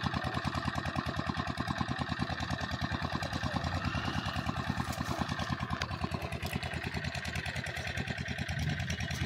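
A small engine running steadily, with a fast, even low pulse.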